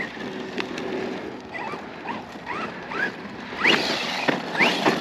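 Arrma Outcast 4S V2.5 RC monster truck's brushless electric motor giving a series of short rising whines, about two a second, as the throttle is punched again and again. From near the end, a rougher rushing noise of the tyres on loose dirt joins in.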